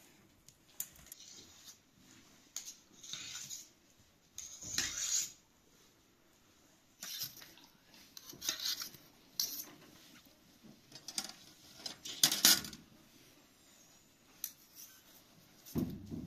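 Metal skewers and a knife scraping and clinking against a serving plate as grilled kebabs and tomatoes are pushed off the skewers: a series of short scrapes with quiet gaps, the loudest about twelve seconds in.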